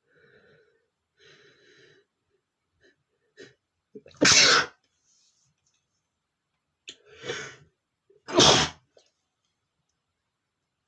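A man sneezes loudly twice, about four seconds apart, each sneeze coming after a quieter build-up sound. Soft breathing sounds come in the first two seconds.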